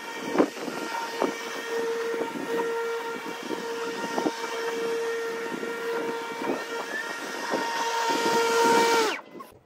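Electric walk-behind lawn mower running with a steady high whine and scattered clicks from the cutting. Near the end the motor is switched off and its whine falls away as the blade spins down.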